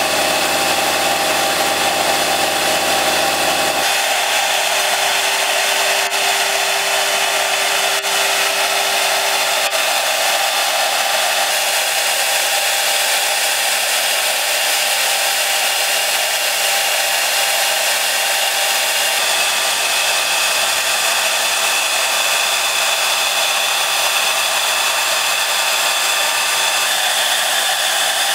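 Spindle of a 5-axis CNC router running steadily while a thin engraving bit mills a relief into a stone block: a steady high-pitched tone over an even hiss. A lower hum drops out about four seconds in.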